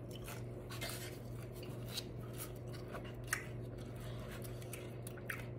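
Quiet eating sounds over a steady low electrical hum: soft chewing and a few faint clicks and rustles as a plastic-gloved hand picks food from a fibre takeout tray.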